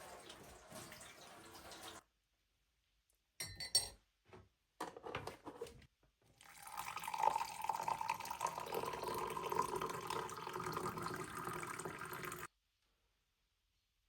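Water running for about two seconds, then cut off. A few short clinks follow. From about six and a half seconds, water pours into a vessel for about six seconds and stops abruptly.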